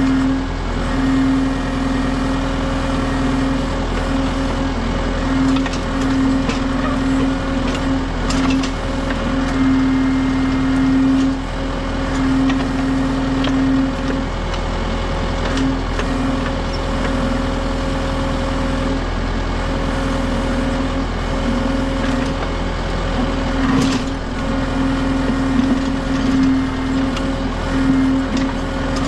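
Kubota M6060 tractor's diesel engine running steadily while working a backhoe, with a strong hum that swells and drops in spells as the controls are worked. A few sharp knocks stand out, the loudest near the end.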